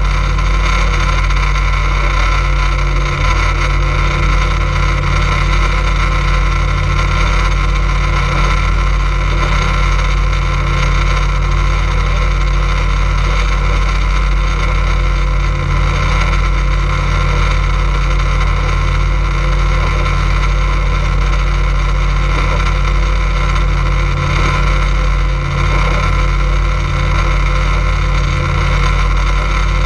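Motorboat engine running steadily while under way, a constant drone that holds the same pitch and level throughout.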